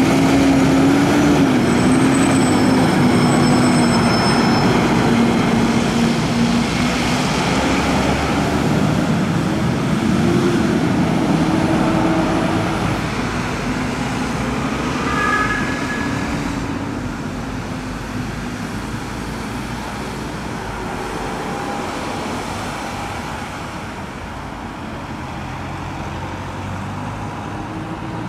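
Volvo FMX 370 fire engine's diesel engine pulling away and driving past, its note wavering and rising as it accelerates through the turn. It fades into general road traffic over the second half.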